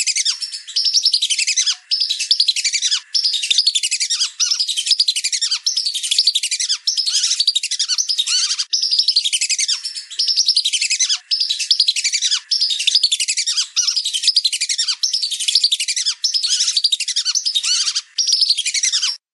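Lesser whistling ducks calling, many at once: dense, high whistled chattering in phrases of about a second, several ending in a falling whistle, with short gaps between phrases.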